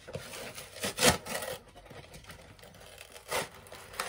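Cardboard toy box being pulled and torn open by hand: rough scraping and rubbing of cardboard, with a sharp crack about a second in and another about three and a half seconds in.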